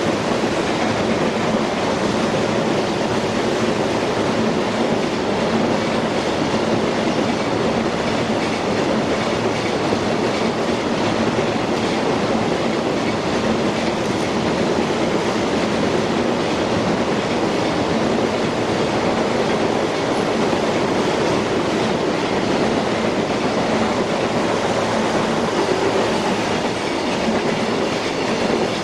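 A long JR Freight train of wagons rolling past at speed: a loud, steady, unbroken din of wheels and cars on the rails, with a steady low hum beneath it.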